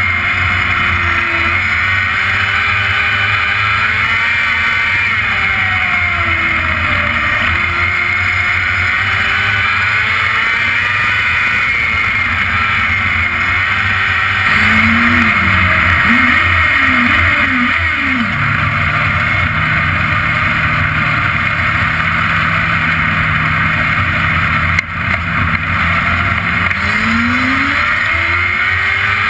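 Open-wheel dirt-track race car engine at racing speed, heard from the cockpit, its pitch rising on the straights and falling into the turns over a steady rush of wind and road noise. About halfway it revs up and down several times in quick succession, then holds a steady lower drone for several seconds before climbing again near the end.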